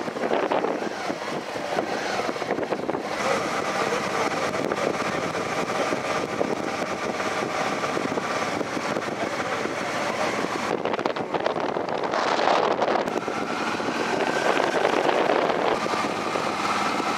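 Steady rushing of wind on the microphone mixed with road noise, moving along with a group of cyclists, with a faint steady hum running through it at times.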